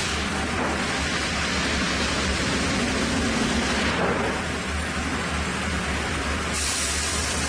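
Steady, loud noise of sawmill machinery with a constant low hum underneath; a sharper high hiss comes in near the end.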